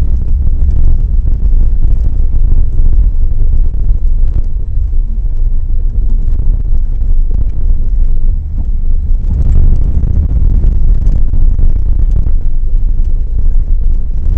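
Loud, steady low rumble of a small trailer being towed over a gravel dirt road, heard from a camera on the trailer's tongue, with scattered small clicks and rattles from the hitch and stones.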